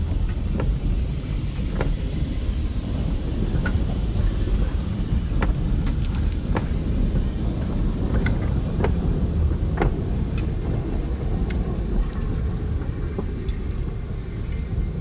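Former Den Haag PCC tram with its trailer car rolling slowly past: a steady low rumble with scattered, irregular sharp clicks and knocks from the running gear on the rails.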